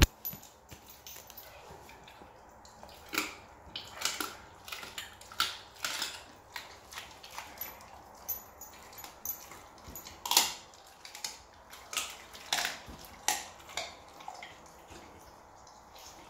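A Rottweiler chewing raw food, with irregular sharp crunches every half second to a second; the loudest comes a little past the middle.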